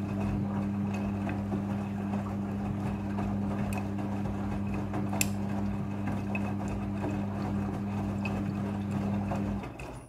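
Midea front-loading washing machine running its wash cycle: a steady motor hum under the swish of wet clothes tumbling in the drum, with scattered light clicks. It stops abruptly near the end.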